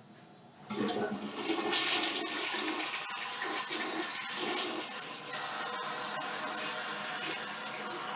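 Toilet flushing: water rushes into the bowl starting suddenly just under a second in and keeps running steadily, easing slightly toward the end. The toilet has just been repaired, with its leak fixed and its sticking handle freed.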